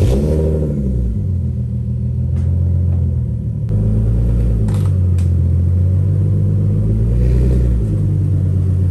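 Infiniti Q50's exhaust note at the tailpipes: the engine running steadily with a deep, pulsing tone after a brief rise in pitch at the start. A few faint clicks sound midway.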